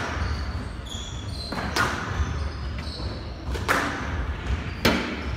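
Squash rally: three sharp smacks of the ball off rackets and court walls, spaced a second or two apart. Short high squeaks of court shoes on the wooden floor come between the smacks.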